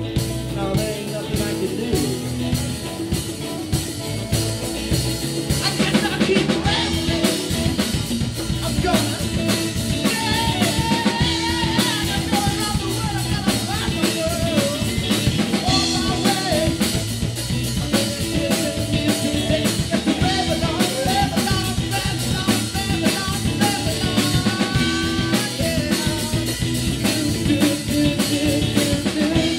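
A live rock band playing: electric guitars and bass over a drum kit, with a wavering melody line that comes in about six seconds in.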